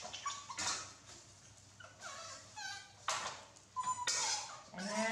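Baby macaques giving short high squeaks and whimpering calls, with a couple of brief clanks of a metal spatula against a wok.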